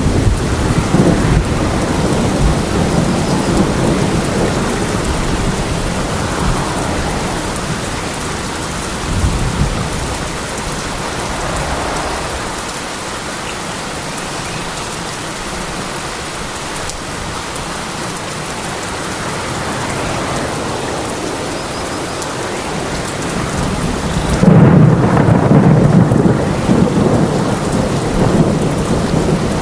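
Steady heavy rain with rolling thunder; a loud, deep thunder rumble starts about five seconds before the end.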